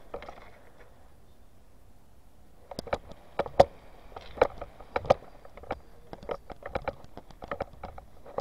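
Footsteps crunching on gravel and rubble, starting about three seconds in as a run of short, irregular crunches.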